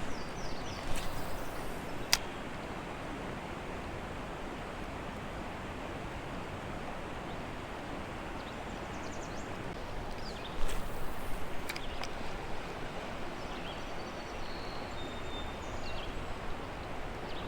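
Steady rush of flowing creek water. A click sounds about two seconds in, and a louder spell of clicks and rustling comes at about eleven seconds.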